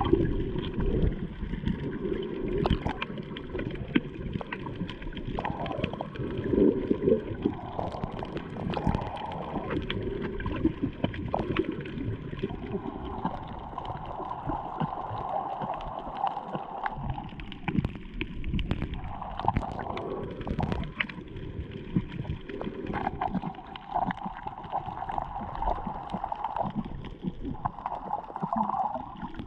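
Muffled underwater water noise picked up by a submerged GoPro Hero 7's microphone: low sloshing and gurgling, with many scattered short clicks.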